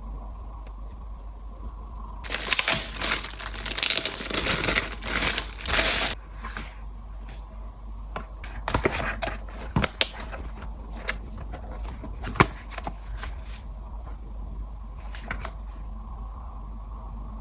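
Packaging being crinkled and torn open for about four seconds, followed by scattered clicks and taps of items being handled.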